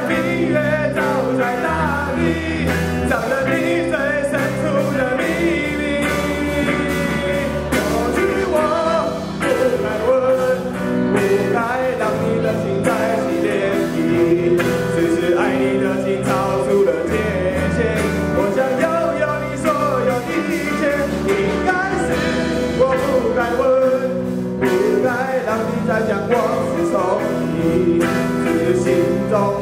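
Live band playing a rock ballad: a steady beat with bass and drums under a gliding lead melody.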